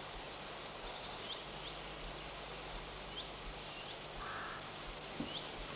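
Faint outdoor ambience: a steady hiss with scattered short bird chirps, and one brief lower call about four seconds in.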